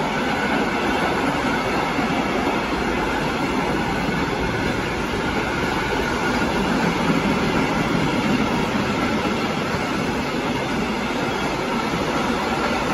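Freight train of covered bogie wagons rolling past, its wheels making a steady rumble and rattle on the rails.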